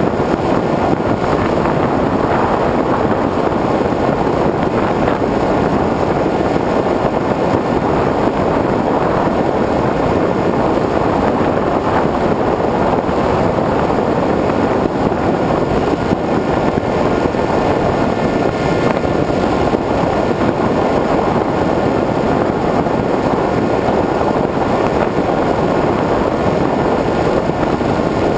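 Onboard sound of a Multiplex Easystar RC plane in flight: a steady, dense rush of air, with a faint drone from its 2000KV brushless motor and 6x4 pusher propeller.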